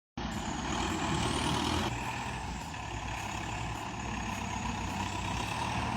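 Heavy vehicle engine running steadily, likely the logging tractor working in mud; the sound changes character about two seconds in.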